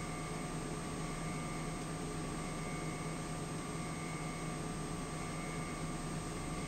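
Steady room tone: an even hiss and low hum with a few faint steady tones, and no distinct handling sounds.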